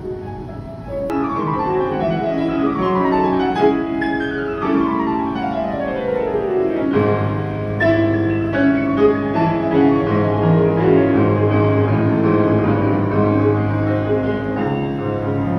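Background music led by piano, with cascading falling runs in the first half; a steady low bass comes in about seven seconds in.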